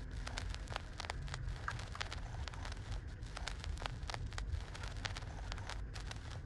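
Newborn puppies suckling at their mother's teats: irregular small wet clicks and smacks, several a second, over a low steady rumble.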